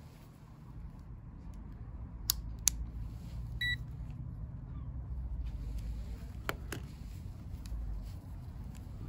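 Digital multimeter being switched on, with two clicks of its selector dial followed about three and a half seconds in by a short high beep. A couple more clicks of test-lead handling come later, over a steady low rumble on the microphone.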